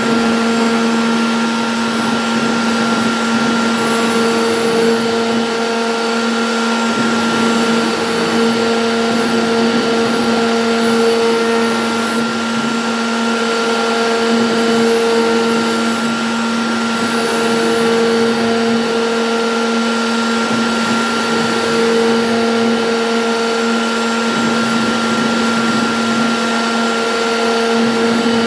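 CNC router spindle running steadily while carving an MDF name board: a constant motor whine over cutting noise, with one tone swelling and fading every second or two.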